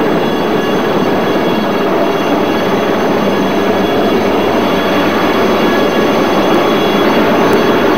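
Outboard motor of an inflatable rescue boat running steadily at low speed.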